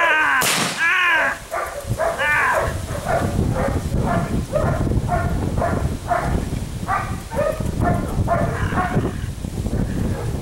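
Six-week-old Belgian Malinois puppy giving short high-pitched barks and yips over and over, about two a second, while gripping and tugging a bite rag. A single sharp shotgun shot cracks about half a second in.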